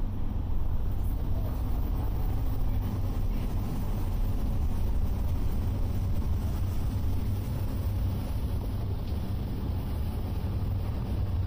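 Steady low drone of a river-bus boat's engines under way, with the rush of water and air around the open rear deck.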